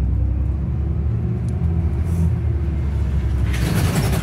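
City bus engine running with a steady low rumble, heard from inside the cabin at the front. About three and a half seconds in, a loud hiss rises across the upper range and carries on.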